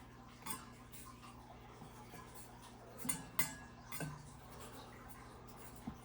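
Metal desk-fan blades being bent by hand, giving a few scattered metallic clinks and knocks, the loudest cluster about three seconds in, over a faint steady low hum.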